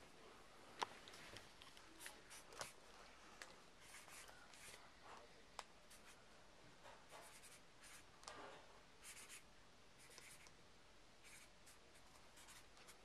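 Near silence in a small room, broken by faint scattered clicks and brief scratchy rustles, the sharpest click about a second in.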